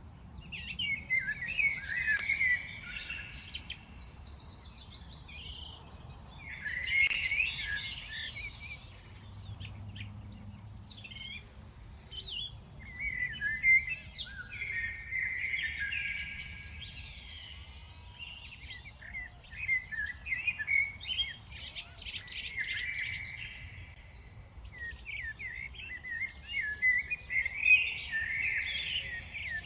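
Birds chirping and singing in bouts a few seconds long, with short lulls between them. A low steady rumble runs underneath.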